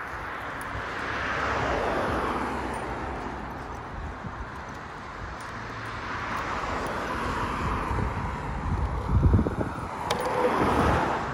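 Road traffic: cars passing on the road alongside, each swelling and fading, one after another, the loudest pass near the end. A few low thumps on the microphone come just before it.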